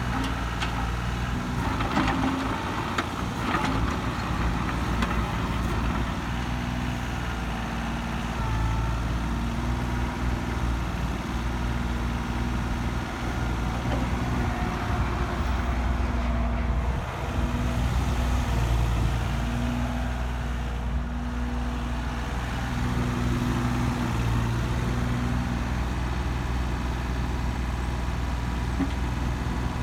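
Komatsu diesel engine of a 1989 Komatsu PC20-6 mini excavator running steadily, with a higher hum that comes and goes every few seconds. A couple of sharp knocks sound about two and three and a half seconds in.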